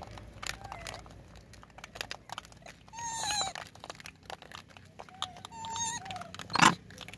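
Young rhesus macaques giving short, high-pitched coos several times, some arching and some gliding in pitch, over scattered small clicks. A brief, louder noise comes near the end.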